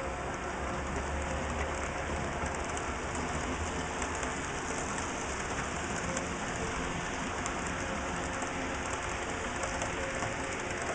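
HO scale model freight train running on the layout: a steady whir and patter of its motors and wheels on the track.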